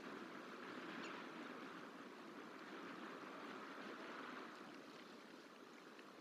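Faint, steady rush of flowing water from a nearby stream, outdoor ambience with no distinct calls.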